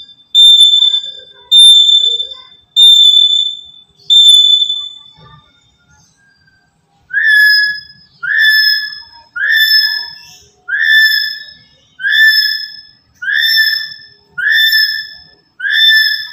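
Black-capped lory calling with loud, repeated whistles: four long, flat, high whistles about a second apart, then after a pause of about three seconds a run of eight shorter, lower calls, each with a quick rise at its start, at the same even spacing.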